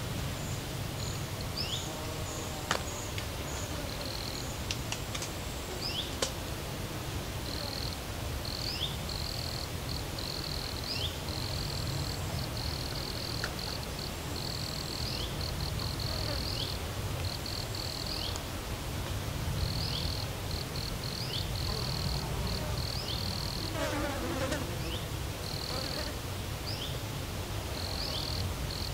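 Insects chirping in rapid pulsed runs with short high falling chirps between them, over a steady low rumble. One falling call comes a few seconds before the end.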